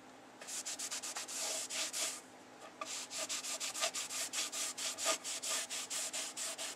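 Rag wet with WD-40 rubbed back and forth along a rusty steel bow saw blade, a scraping wipe in quick strokes of about four a second, with short pauses near the start and about two seconds in.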